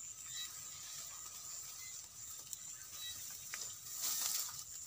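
A steady, high-pitched chorus of night insects from the field, with a brief rustle of grass and plants being pushed through about four seconds in.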